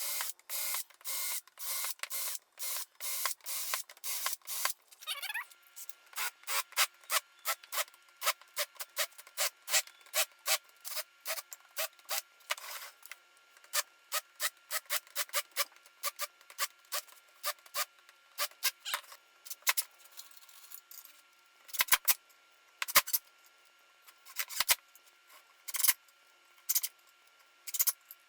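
Hand tool scraping along wood in short repeated strokes, about two a second at first, then fewer and more spaced out, with a few sharper, louder strokes near the end.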